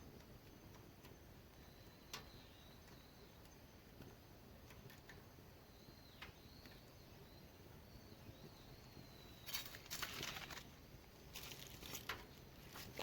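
Quiet outdoor ambience: faint, repeated bird chirps and a few scattered clicks. Near the end come two short bursts of rustling, scraping noise.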